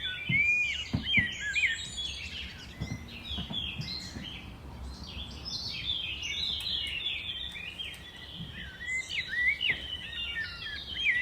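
A dense chorus of many small birds chirping and twittering: quick overlapping high chirps and short rising and falling whistles, with a couple of soft thumps in the first second or so.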